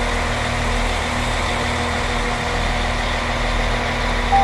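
Diesel multiple unit standing at the platform with its engine idling, a steady hum with a low rumble. A short beep sounds right at the end.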